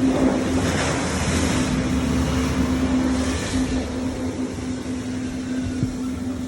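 Watercraft engine running at a steady pitch over a low rumble, with rushing water and wind noise that swells twice.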